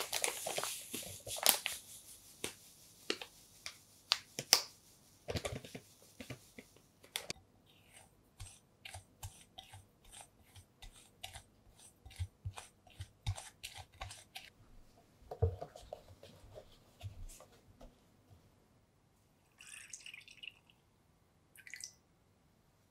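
Granulated sugar poured from a bag into a glass bowl, a sandy hiss with taps, then a silicone spatula stirring the dry powder in the glass bowl with regular light ticks, about two to three a second. A few duller knocks follow, and near the end comes the brief splash of milk poured onto the powder.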